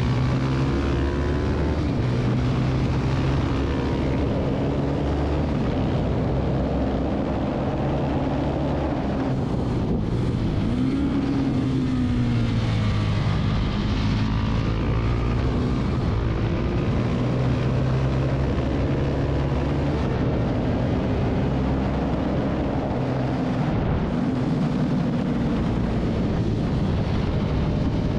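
Husqvarna 701 supermoto's single-cylinder engine at race pace, its pitch climbing through the revs and dropping back again and again as it shifts gears and brakes for corners, with wind rushing over the microphone.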